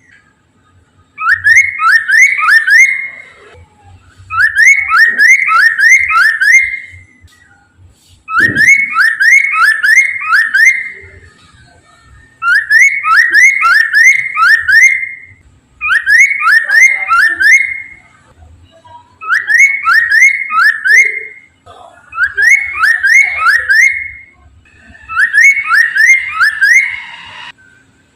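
Poksay mandarin, a caged laughingthrush, singing in full song. It repeats a phrase every few seconds, each one a quick run of four or five rising whistled notes with short pauses between. A faint low thump comes about a third of the way in.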